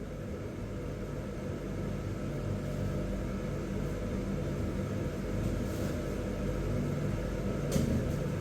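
Steady low mechanical hum, like a motor or fan running, with a brief faint click near the end.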